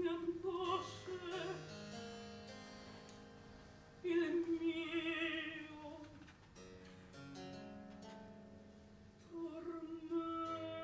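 Mezzo-soprano singing a baroque Italian opera lament with wide vibrato, accompanied by harpsichord continuo. Three sung phrases, at the start, about four seconds in and near the end, alternate with harpsichord chords left ringing and fading between them.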